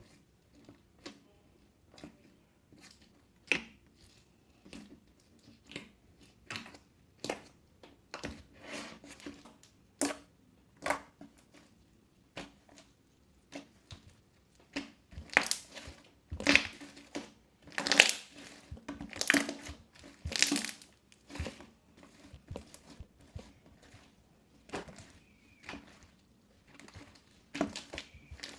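Crunchy slime being squeezed and pressed, giving repeated bursts of crackling and crunching. The bursts are sparse at first, then come louder and closer together about halfway through.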